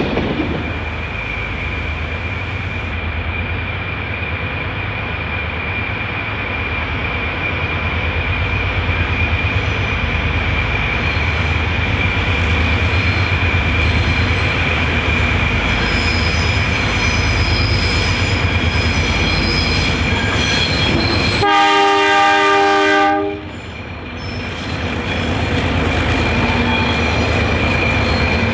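48 class Alco diesel locomotives running under power at the head of a coal train, with a steady throbbing engine rumble and a steady high-pitched wheel squeal as the train rounds a curve. About three-quarters of the way through, the locomotive horn sounds a chord for about two seconds, the loudest moment. Then the engine rumble swells as the locomotives pass.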